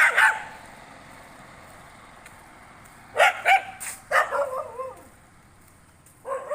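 Street dogs barking in short bursts: a couple of barks at the start, a quick run of barks and yelps about three to five seconds in, and another bark near the end.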